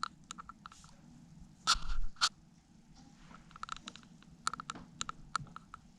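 Small plastic clicks and taps from the IKEA LED light parts and their wire being handled. There are two louder knocks about two seconds in and a run of quick clicks in the second half.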